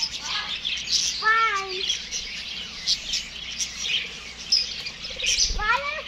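Many small aviary birds chirping together in a dense, continuous chorus, with a few short sliding calls among them: one falling about a second in and one rising near the end.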